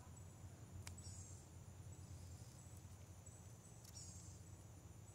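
Near silence with faint insects chirping in short repeated bursts and a low hum, broken by two faint clicks about three seconds apart: the snips of scissors pruning bee balm stems.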